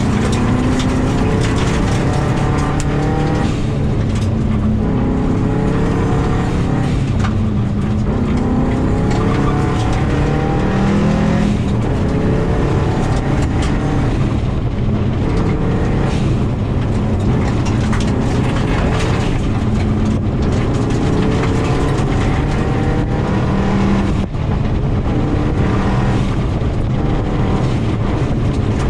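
2000 Subaru WRX rally car's turbocharged flat-four engine revving hard through the gears, its pitch climbing and then dropping again and again at each shift, over a steady rumble of gravel under the tyres, heard from inside the cabin.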